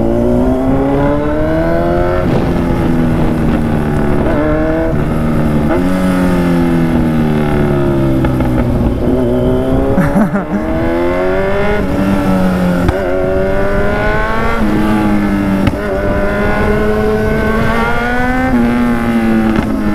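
Kawasaki Z1000 inline-four motorcycle engine under way, its revs climbing and dropping back again and again as the rider accelerates and changes gear or rolls off the throttle.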